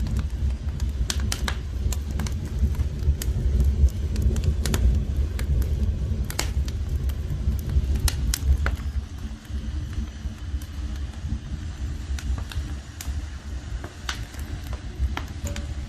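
Wood fire burning in a traditional firebox: a steady low roar with scattered sharp crackles and pops.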